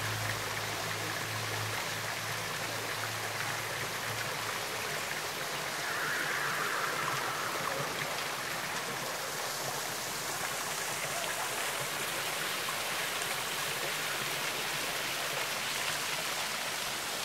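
Water of the Residenz Fountain (Residenzbrunnen) splashing down into its stone basin: a steady rushing hiss.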